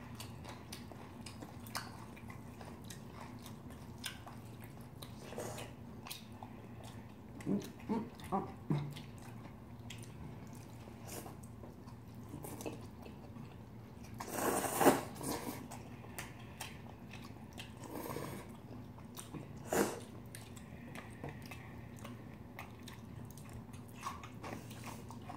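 Close-up eating sounds of spicy mixed cold noodles: chewing and slurping, with scattered small clicks of chopsticks and a brief louder noisy burst about fifteen seconds in.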